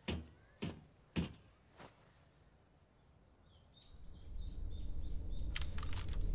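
Footsteps walking, a thud about every half second, fading out within the first two seconds. Then a low rumble of background noise rises, with faint bird chirps over it and a quick run of clicks near the end.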